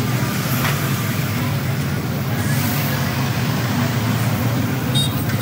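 Large cargo truck driving past close by, its engine running with a steady low rumble amid road traffic.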